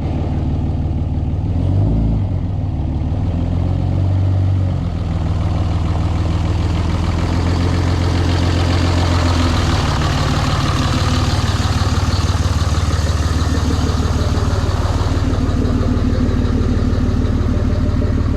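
Pickup truck engine running, its pitch swinging up and down a couple of times in the first five seconds, then holding a steady drone.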